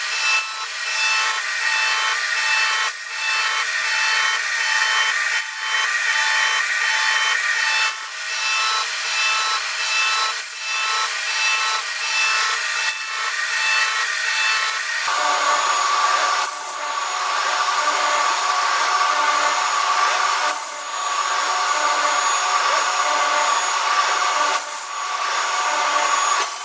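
A CNC bevel gear machine cutting the teeth of a spiral bevel gear: a steady, high-pitched scraping whine made of many held tones, with a short dip about every two and a half seconds as the gear indexes from slot to slot. About halfway through the sound shifts to a different, lower-centred whine with a few brief breaks.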